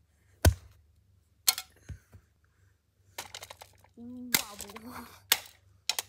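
A bat striking the blades and housing of a small ceiling fan: a series of sharp cracking knocks, the loudest about half a second in and more in quick succession toward the end. A short hummed voice tone sounds between the later hits.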